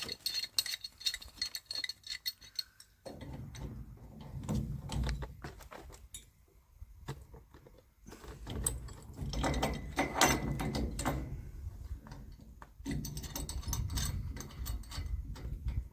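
Metal tools clinking and clicking against a tap fitting as it is worked loose, with low rumble behind.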